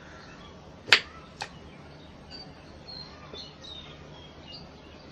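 A kitchen knife cutting through a potato and knocking against the wooden cutting board: one sharp knock about a second in and a smaller one half a second later.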